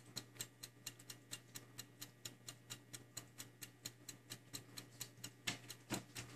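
Faint, steady, rapid ticking, about five clicks a second, over a low hum, with two louder knocks near the end.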